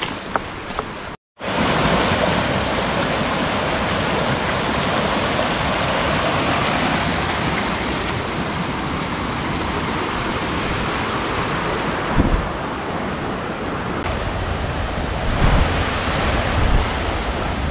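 Steady rush of a mountain stream, a continuous hiss of flowing water that starts abruptly about a second in. A few soft low bumps come near the end.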